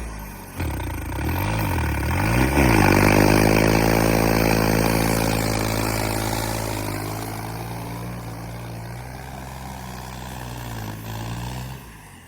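Tractor diesel engine revving hard under heavy load while stuck in deep mud. Its pitch swings up sharply in the first few seconds, then slowly sags as it labours, and drops away near the end.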